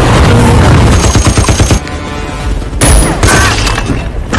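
Rapid automatic gunfire in a film battle scene, with a brief lull near the middle before another loud burst.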